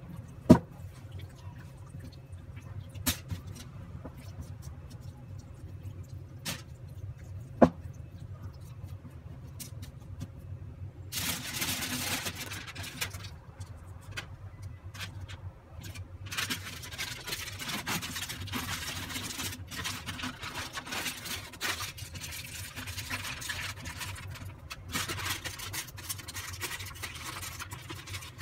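Aluminium foil crinkling and rustling in bouts as it is handled and folded up into a parcel, starting about a third of the way in, over a steady low hum. Earlier there are a few sharp knocks, two of them loud.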